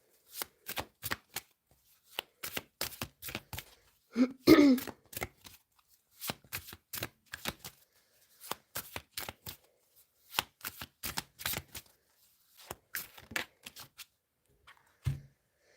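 A deck of tarot cards being shuffled by hand: a quick run of soft card clicks coming in bunches. A short, loud vocal sound breaks in about four seconds in.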